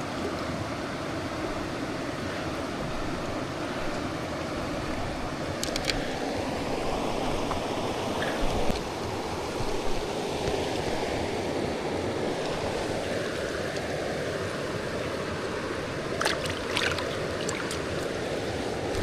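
River water flowing steadily over rocks, with a few short sharp clicks about six seconds in and again near the end.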